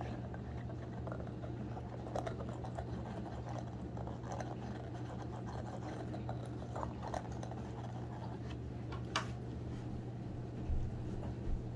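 A small dog (a Pomchi) gnawing on a rubber chew toy: faint, scattered chewing clicks, with one sharper click late on, over a steady low hum.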